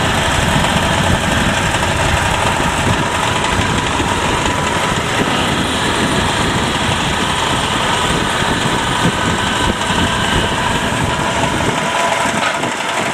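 An engine idling steadily. The deep low part of the rumble drops away about twelve seconds in.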